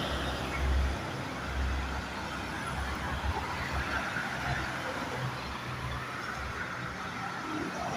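Road traffic: engines and tyre noise of passing vehicles, with an uneven low rumble.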